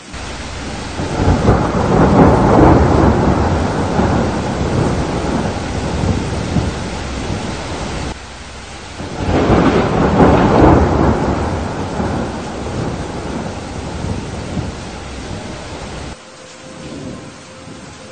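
Two long rolls of thunder over steady rain. The first swells up about a second in and rumbles on for several seconds before dying away. The second builds near the middle and fades out shortly before the end, leaving the rain.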